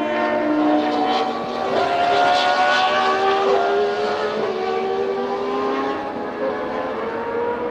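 Mid-1990s Formula One car engines at racing speed, several high engine notes overlapping, each climbing slowly in pitch and shifting a few times.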